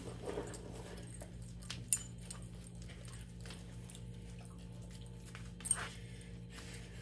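A dog moving about: scattered light clicks and taps over a steady low hum, with a sharper sound about two seconds in and another near the end.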